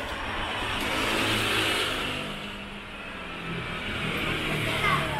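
Claw crane machine's motors whirring as the claw drops onto a boxed prize and grips it, over a steady arcade hiss. A short falling tone comes near the end.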